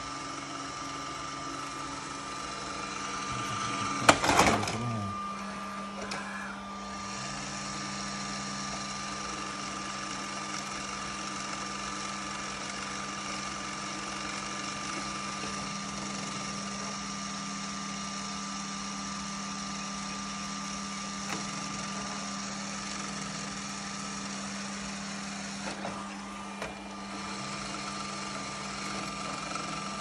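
Roomba robot vacuum running in place: a steady motor hum with a thin high whine, and one loud knock about four seconds in.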